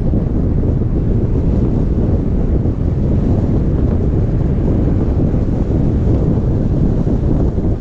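Steady low wind rumble buffeting the microphone of a camera on a moving car, mixed with road noise.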